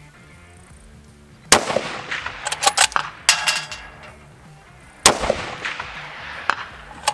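Two loud rifle shots from a 6.5 Creedmoor bolt-action rifle fitted with an APW Raptor muzzle brake, about three and a half seconds apart, each a sharp crack that echoes away. Between them, metallic clicks as the bolt is cycled.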